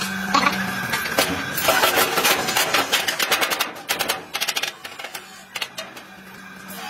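Hammer striking steel plate, a fast run of metal clanks for about three seconds, then a few scattered, quieter taps.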